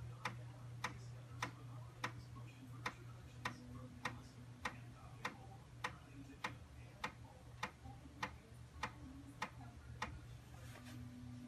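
Amiga A1000's built-in floppy drive clicking steadily, a little under twice a second, over a low steady hum, as it reads the Kickstart 1.3 disk at power-on.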